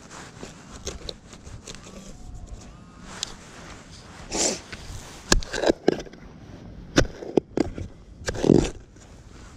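Hands handling gear and soil at a dig hole: a few sharp clicks and short scraping rustles, the clicks coming in the second half.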